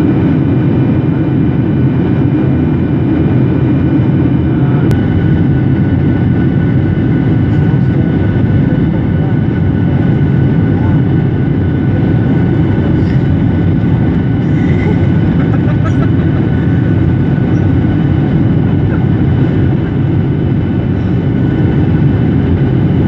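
Jet airliner cabin noise in cruise flight: a loud, steady rush of engine and airflow noise, with a few faint steady high tones running above it.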